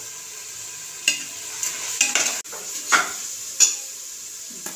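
Onion and tomato masala frying in oil in a pressure cooker, with a steady sizzle, while a metal ladle stirs it and scrapes and knocks against the pot four or five times in the middle. The tomatoes are being sautéed until they soften.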